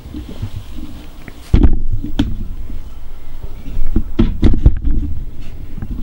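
Camera being handled and moved: irregular heavy thumps and bumps with a few sharp clicks, the loudest about one and a half seconds in and another cluster about four to five seconds in.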